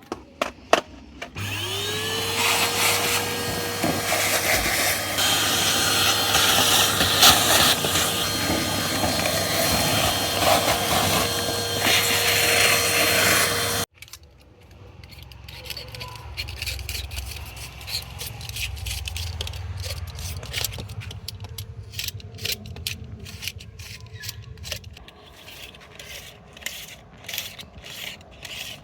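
A small electric motor spins up with a rising whine, runs steadily for about twelve seconds, then cuts off abruptly. After that comes a run of quick scraping and clicking strokes from a hand tool such as a scraper working along a surface.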